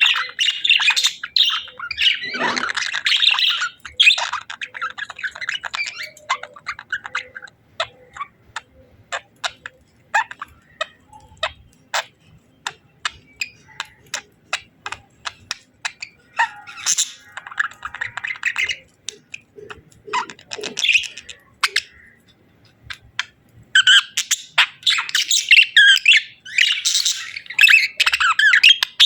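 Budgerigars chirping and chattering. Dense warbling runs through the first few seconds, comes again briefly past the middle and from about five seconds before the end, with sparse short sharp chirps in between.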